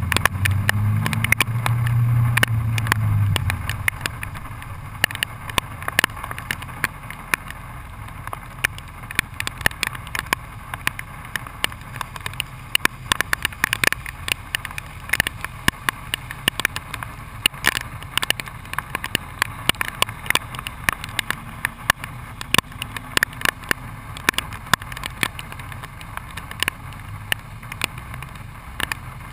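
2001 BMW E39 M5's 4.9-litre V8 through a muffler-deleted exhaust with a Tubi resonated X-pipe, heard close to the tailpipes. It runs at moderate revs for the first few seconds as the car slows, then drops to a low, steady idle, with a dense crackle of sharp clicks throughout.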